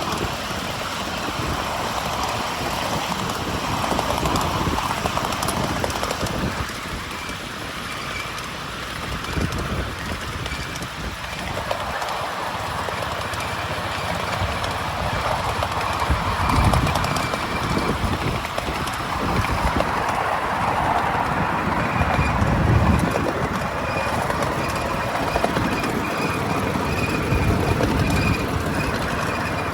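Miniature railway train running along the track: a steady rumble of wheels on rail, with a few louder low rumbles past the middle.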